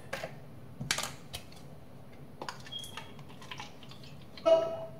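Light clicks and taps of a plastic juice bottle and a plastic cup being handled as juice is poured, with a short, louder sound near the end.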